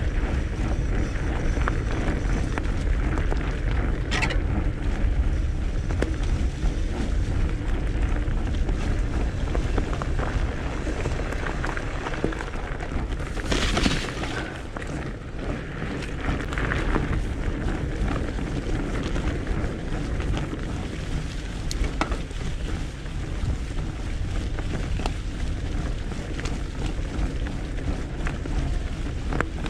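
A Salsa Mukluk fatbike's 4.6-inch 45NRTH Dillinger 5 tyres rolling over dry leaves and dirt trail, with small crackles and ticks throughout and a low rumble of wind on the microphone. About halfway through comes a brief, louder burst of noise.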